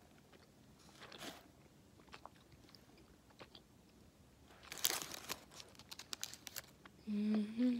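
Close-up chewing of a very chewy caramel-peppermint candy: soft, scattered wet mouth clicks, with a louder cluster of chewing sounds about five seconds in. Near the end comes a short hummed "mm".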